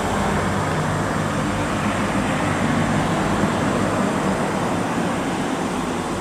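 Norfolk Southern diesel-electric locomotive running at low speed as it approaches, its engine a steady low drone.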